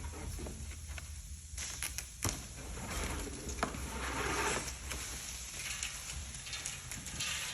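Rustling and scraping of the packing on a crated snowmobile as it is being cut off and pulled away, with a few sharp clicks and knocks.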